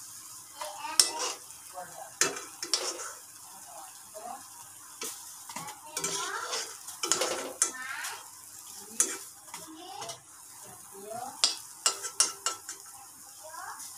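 A spatula scraping and knocking against a metal wok as banana fritters are turned and lifted out of hot frying oil, with the oil sizzling. The knocks come irregularly, with a quick run of clinks near the end.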